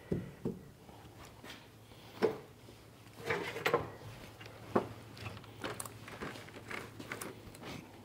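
Scattered knocks and clatter of a paint roller and tray being handled while fiberglass resin is laid up, loudest a few seconds in, over a faint steady low hum.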